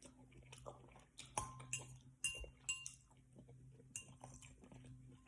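Faint, scattered clinks and taps of an eating utensil against a dish, a few of them ringing briefly.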